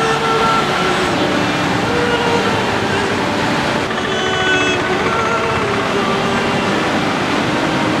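Background music of held notes that step to a new pitch every second or so, over a dense, steady rushing noise. The sound changes character about four seconds in.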